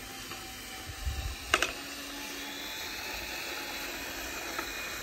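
Small electric drive motor and gears of a radio-controlled model tractor running steadily as it tows a trailer over sand, with a sharp click about one and a half seconds in.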